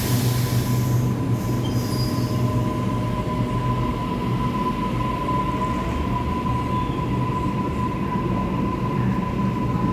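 Sydney Trains electric suburban train moving through the station with a steady low rumble and a steady high-pitched squeal or whine held throughout. A short hiss fades out right at the start.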